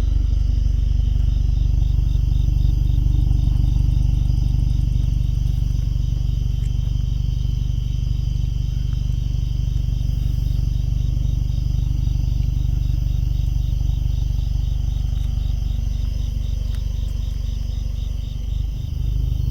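Crickets chirping in an even, rapid, continuous pattern over a steady low rumble.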